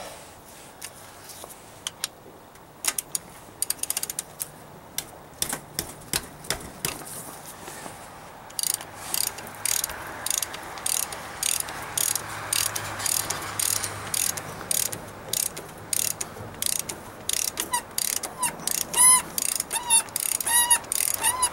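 Hand ratchet clicking as a socket on an extension is worked back and forth to unscrew a delivery valve holder on a Bosch P-7100 diesel injection pump. The clicks are sparse at first, then come in a long even run, with a few short squeaks near the end.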